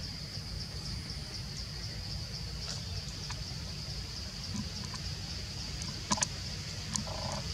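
Forest insects chirring in a steady high-pitched trill over a low rumble of background noise, with a few sharp clicks, two close together about six seconds in and another near the end.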